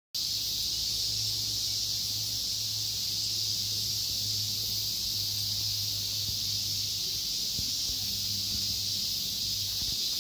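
Summer cicadas calling together in a steady, high-pitched drone with no breaks.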